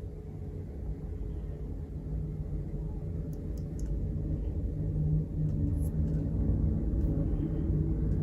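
Microwave oven running: a steady low electrical hum that grows gradually louder, with a few faint ticks about three and a half seconds in.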